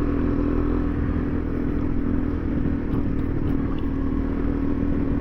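Single-cylinder dual-sport motorcycle engine running at a steady pace on a dirt road, its note holding level, under steady wind and road noise.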